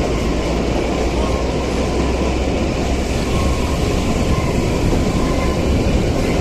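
Narrow-gauge Kalka–Shimla toy train running at a steady pace: continuous wheel and carriage noise, with faint high steady tones over it.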